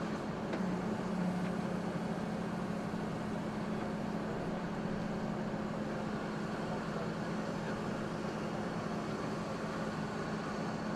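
Flatbed tow truck's engine running at a steady idle, a constant low hum.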